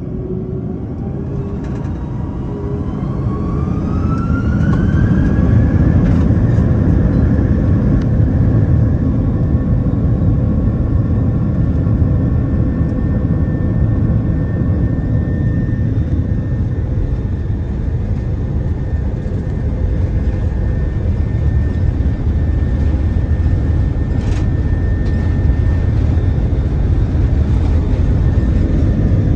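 Airbus A330-203's General Electric CF6-80E1 turbofan engines, heard from inside the cabin, spooling up to takeoff thrust. A rising whine builds over the first six seconds, then the engines run steady and loud with a deep rumble and a high whine.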